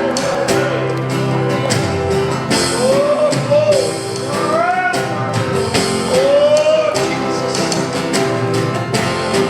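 A live worship band playing an upbeat rock-style song, with drums, guitar and bass, while a singer holds long arching phrases over it.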